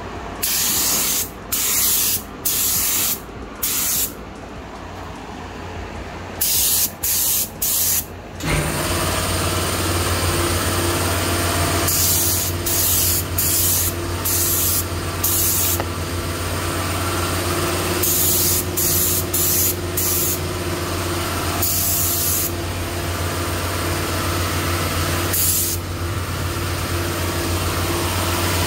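Paint spray gun triggered in short bursts of hissing air as the silver base coat goes on. About eight seconds in an air compressor starts up and keeps running with a steady hum under further spray bursts.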